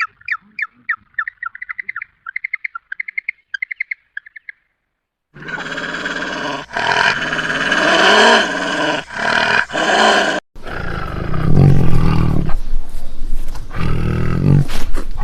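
A bird chirping in a rapid series of short notes for about four and a half seconds. After a brief gap, a large animal gives loud, rough calls with short breaks between them.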